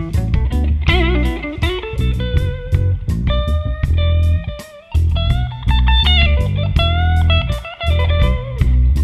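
Blues band playing live: electric guitar lead with held, bending notes over electric bass and a drum kit, with a brief break in the playing about five seconds in.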